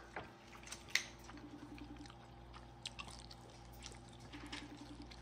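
Faint eating noises: a few soft clicks, the sharpest about a second in, over a low steady room hum.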